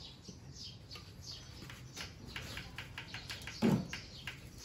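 Small birds chirping repeatedly, a run of short falling chirps. About three and a half seconds in there is one brief, louder low sound.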